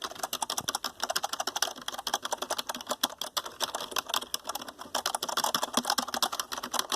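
Steady typing on a Logitech K480 Bluetooth keyboard: a quick, irregular run of key clicks, several a second, cutting off abruptly at the end.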